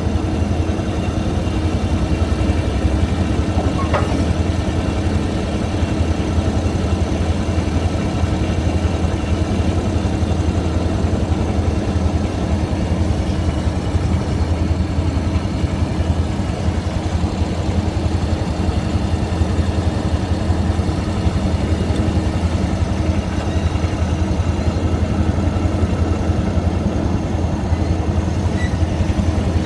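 Toro TX-1000 stand-on compact loader's engine running steadily at a constant speed, with no revving.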